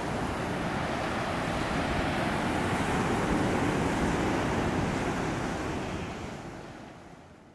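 Ocean surf washing against a rocky shore, a steady wash of noise with some wind, swelling slightly midway and fading out over the last second or so.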